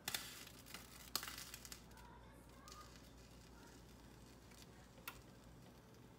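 Plastic zip-top bag crinkling as it is handled, in two short bursts within the first two seconds, then faint room tone.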